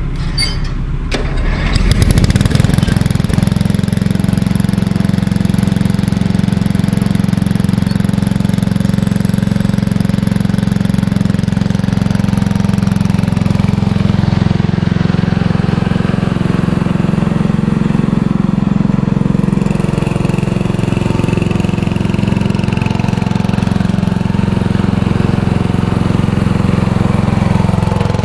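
Riding lawn tractor engine cranked over briefly and catching about two seconds in, then running steadily.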